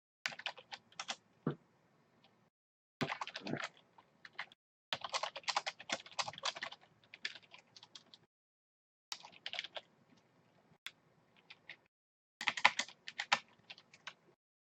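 Computer keyboard typing in five quick runs of key clicks, each a second or two long, with dead silence between them.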